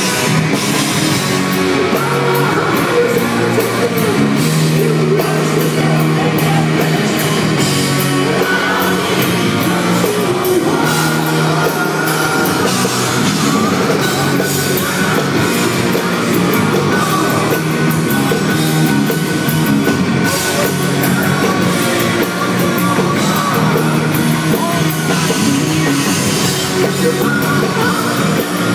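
Hard rock band playing live, with distorted electric guitars, bass and drum kit under a male lead singer, heard loud from within the crowd.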